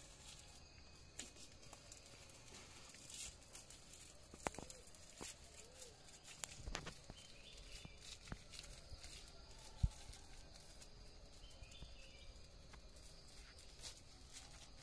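Scattered light clicks, taps and rustles from handling a tied bundle of banana leaves and its binding strip, with one sharper knock about two-thirds of the way through.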